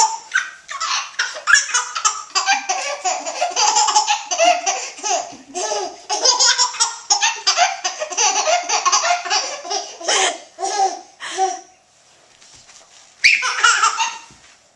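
Baby laughing in long runs of quick laughs, breaking off for a moment near the end and then laughing again.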